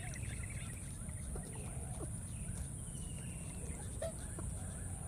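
Outdoor ambience: a constant low rumble, a steady high-pitched drone, and faint short animal calls scattered through.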